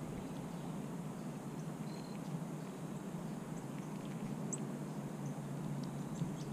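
A squirrel feeds on birdseed right beside the microphone, giving faint scattered high clicks over a steady outdoor hiss. A brief high chirp comes about two seconds in.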